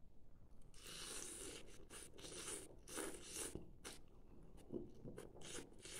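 A person eating noodle soup close to the microphone: chewing and mouth noises in a run of short crackling smacks, starting about a second in.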